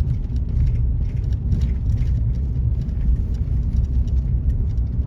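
Car driving slowly down a park road: a steady low rumble of engine and road noise, with faint irregular ticks and crackles.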